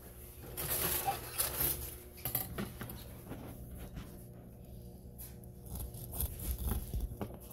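Rustling, then scattered light taps and clinks, as food and utensils are handled in a kitchen.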